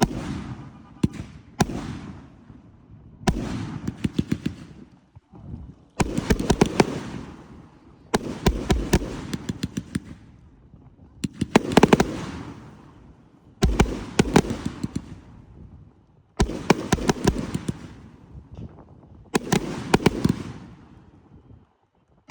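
Fireworks going off: a series of loud bangs, about one every two to three seconds, each followed by a quick run of sharp crackles and a rumble that fades over a second or two.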